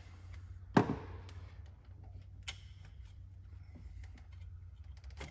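A screwdriver and hands work a stubborn rubber hose off an engine's intake pipe. There is one sharp click about a second in, a couple of fainter clicks later, and soft handling noise over a steady low hum.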